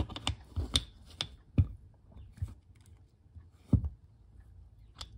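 Steel gears on a BSA Fury SS gearbox layshaft clicking and knocking against each other and the shaft as a gear is worked onto the splines, in irregular sharp taps with two heavier knocks about a second and a half and nearly four seconds in. The gear is not going on properly.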